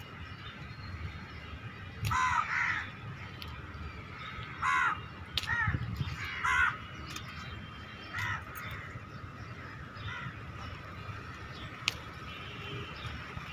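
Crows cawing outdoors in a string of short, harsh caws: two close together about two seconds in, then several more over the next six seconds. A single sharp click comes near the end.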